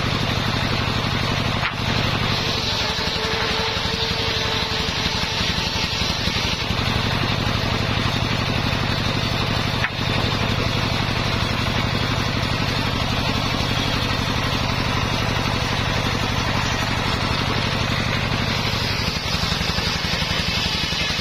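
Homemade engine-driven table circular saw running steadily, the engine's even beat underneath. Near the start and again near the end, the blade rips along a dry waru (sea hibiscus) board, adding a harsh high cutting hiss; in between, the blade spins with less load while the board is drawn back.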